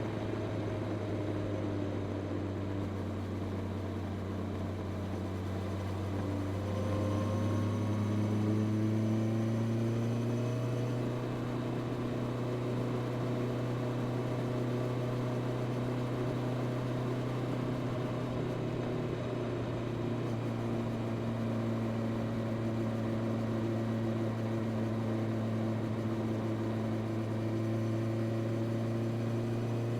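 Honda CB650R's inline-four engine running through its stock exhaust while riding. The engine note climbs in pitch from about six to eleven seconds in, then holds at a steady cruise.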